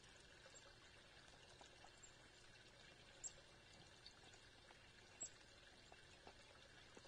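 Near silence: a faint, steady outdoor hiss, with two brief high chirps about two seconds apart.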